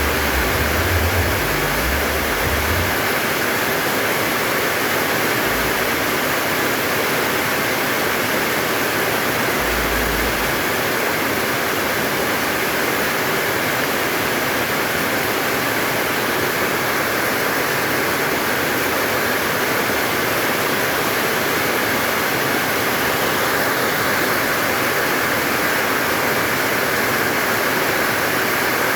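Heavy rain pouring down steadily in an even hiss, with a few brief low rumbles in the first few seconds and again about ten seconds in.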